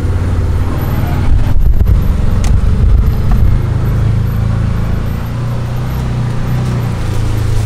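Can-Am side-by-side UTV driving across a field, its engine running with a steady low drone, louder for a couple of seconds near the start.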